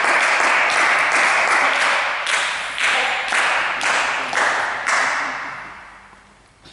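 Audience applauding; the clapping thins to a few separate claps after about two seconds and dies away by about six seconds in.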